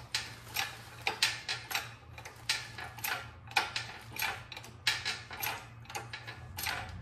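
Engine hoist lifting a bare cast-iron 440 big-block on chains: a steady run of sharp metallic clicks and clinks, about two or three a second, as the hoist is worked and the chains take the weight.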